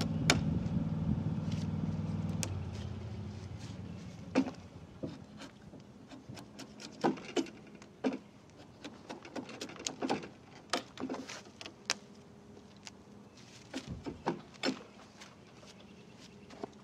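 A low, steady engine hum fades out over the first few seconds. After that come irregular sharp snaps and scraping clicks as a large timber-framing slick is pushed by hand through the wood, paring chips from a rafter's bridle-joint tongue.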